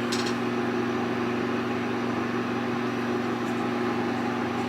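Steady low mechanical hum with an even pitch, with a faint click at the start.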